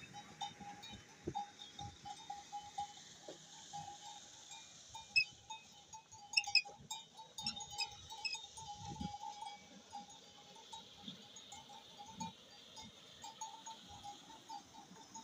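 Iron gearing of a bull-driven Persian wheel turning, giving a steady, rhythmic squeak of metal on metal with scattered light metallic clinks.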